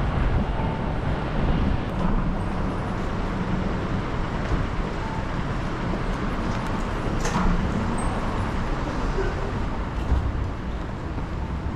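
City street ambience: a steady rumble of road traffic, with a brief hiss about seven seconds in.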